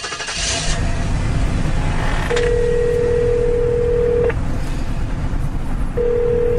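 Telephone ringing tone of an outgoing call: a steady beep about two seconds long, then another starting near the end, over a low steady rumble of a car cabin.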